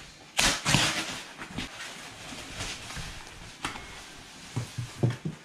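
Foam packing wrap rustling and crinkling as it is pulled away from a trunk, loudest about half a second in, then softer rustling, with a few soft knocks near the end as the trunk is lifted out.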